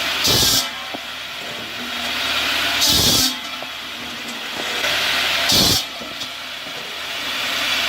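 Firewood processing machine working in a repeating cycle. A steady mechanical noise swells, then gives way to a short hissing rush about every two and a half to three seconds.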